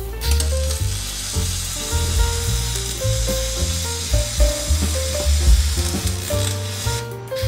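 Electric arc welding on a boat's metal bulwark: a steady crackling hiss that breaks off briefly near the end, heard over background music.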